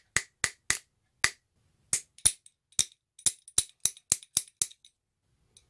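Sharp metallic clicks from small metal parts of a spinning-reel handle knob being pressed and worked into the handle with pliers. About sixteen clicks: a few spaced out at first, then a quicker run of about three a second.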